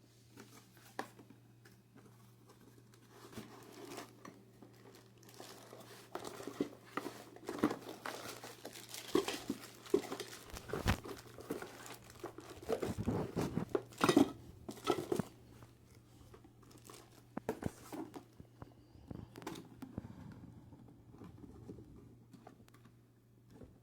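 Packaging crinkling and rustling with scattered knocks as a new power tool and its box are handled, busiest and loudest in the middle. A steady low hum runs underneath.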